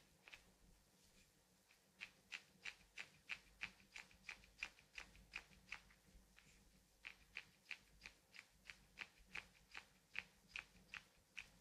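Hands working a foot in a reflexology massage: faint, rhythmic slick rubbing clicks of skin on skin, about three a second, in two runs with a short pause between them.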